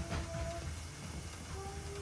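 Soft background music: a few held notes, changing pitch now and then, over a low hum.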